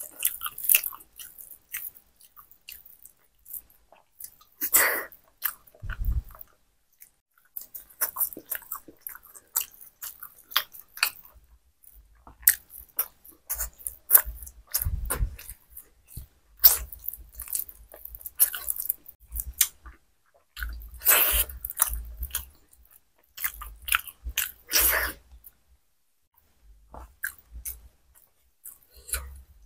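Close-up mouth sounds of a person eating khichuri by hand: wet chewing and lip smacks in irregular bursts, with short pauses between mouthfuls.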